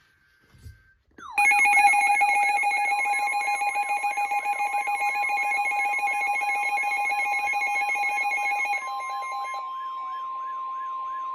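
Weather radio alert tones: a loud electronic alarm, with steady tones and a pitch that sweeps about two and a half times a second, starts abruptly about a second in. A single steady tone near 1 kHz, typical of the NOAA Weather Radio warning alert tone, joins it about three seconds in and carries on alone after the alarm drops away near the end.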